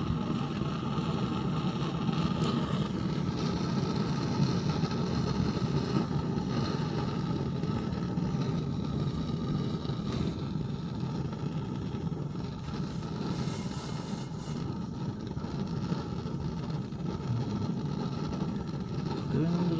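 Swiss Army Benzinvergaser-Brenner petrol stove burning with a steady rushing noise, with one of its jets blocked.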